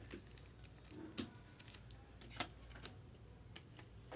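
Faint, scattered clicks and light rustling of trading cards and their packaging being handled, over a low steady hum.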